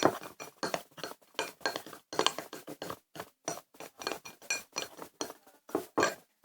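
Spoon stirring thickening slime in a bowl, clinking irregularly against the bowl several times a second with a short ring on the harder knocks.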